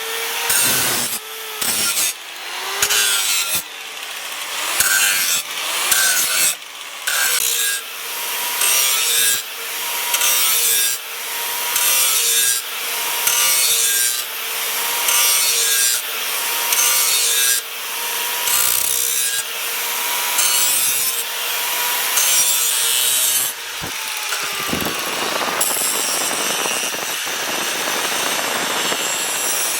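A hand tool rasping back and forth in steady strokes, about one a second, with a faint ringing tone over it. Near the end the separate strokes merge into one continuous rasp.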